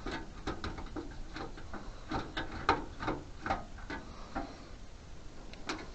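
Screwdriver driving a screw into a PC's metal side cover, a run of quick, irregular small clicks and ticks of metal on metal that thin out near the end.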